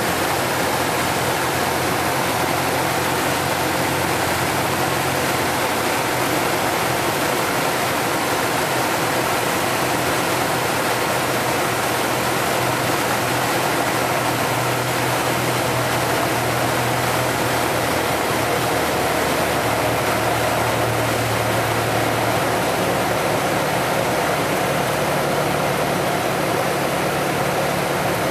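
Piston engine and propeller of a single-engine light aircraft heard from inside the cockpit: a steady drone under a rushing of air during landing and rollout. The low engine note shifts a couple of times midway.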